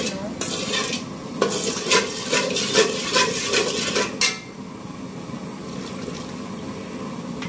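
Perforated metal skimmer ladle scraping and clinking against the sides and bottom of an aluminium pot while sugar is stirred into water, in quick strokes of about three a second. The stirring stops about four seconds in, leaving a quieter steady hiss.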